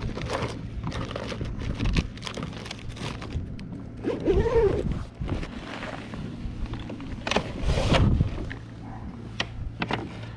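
Fishing tackle being handled: a plastic bait bag crinkling and gear being rummaged, with scattered clicks, knocks and scrapes over a steady low hum.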